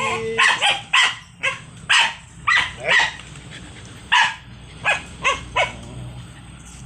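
Aspin puppy giving a run of about a dozen short, high yelps, some falling in pitch, that stop about two-thirds of the way through.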